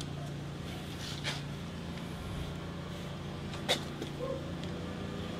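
A low, steady hum with two faint, short clicks, one about a second in and one about two-thirds of the way through.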